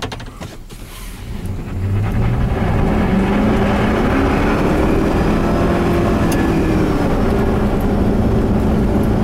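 6.0-litre V8 of a 2000 three-quarter-ton pickup accelerating, heard from inside the cab. The engine note builds over the first couple of seconds, then rises and eases off in pitch as it pulls. It runs strongly now that a crank relearn has cured its sputtering.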